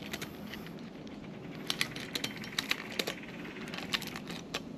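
Irregular sharp clicks and light metallic clinks from steel ladder-stand hardware and strap fittings being handled, several coming in quick pairs.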